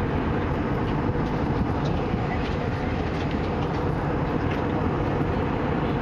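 Steady engine and airflow noise inside the cabin of an Airbus A320 in flight, heaviest at the low end, with a few faint clicks.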